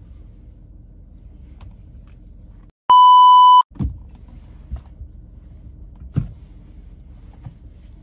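A single steady electronic censor bleep lasting just under a second about three seconds in, cut in with a moment of dead silence on either side. Around it, quiet car-cabin room tone with a few faint clicks and rustles.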